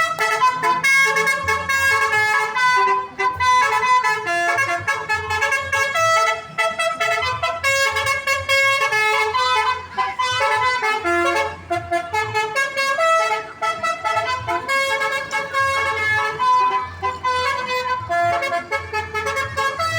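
A bus's telolet horn, a set of multi-tone electric horns, playing a quick tune of changing notes with hardly a break.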